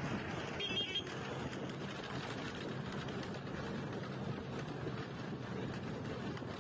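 SBSTC express bus running along the road: a steady drone of engine and road noise. A brief high-pitched tone sounds just under a second in.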